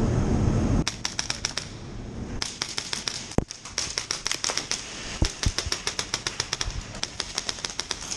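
Wolverine MTW HPA airsoft rifle firing several short full-auto bursts of rapid sharp shots, about ten a second. A low rumble stops about a second in, before the first burst.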